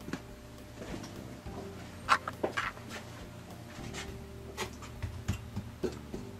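Soft, scattered rustles and light taps of coarse foam ground cover being shaken from a shaker jar and sprinkled onto model-railroad scenery, with a short cluster of sharper clicks a little after two seconds as the jar is handled.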